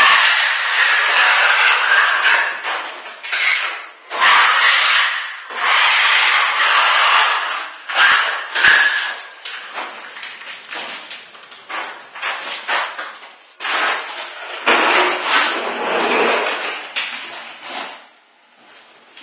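Scraping strokes of a trowel spreading parquet adhesive over a concrete subfloor: long strokes of a second or two at first, then shorter, choppier scrapes. Two sharp clicks come about eight seconds in.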